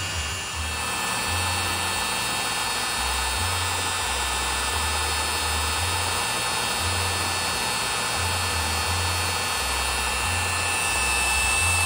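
A CNC machine's trim-router spindle running steadily as its small bit carves shallow lettering into a wooden board, with a steady high whine over the cutting noise. Background music with a stepping bass line plays underneath.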